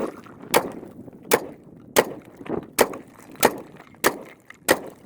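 Semi-automatic rifle fired in quick succession: seven shots about two-thirds of a second apart, each with a short echo.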